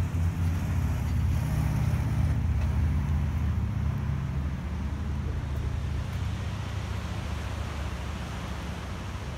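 A motor vehicle going by, its low engine rumble swelling in the first few seconds and then slowly fading.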